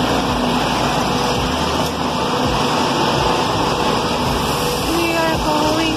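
Busy street traffic: a steady wash of vehicle and engine noise, with faint voices near the end.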